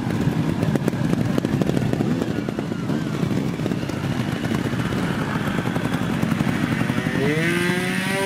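Trials motorcycle engines running with a rapid firing rattle. Near the end, one bike revs up sharply as its rider sets off toward the obstacle.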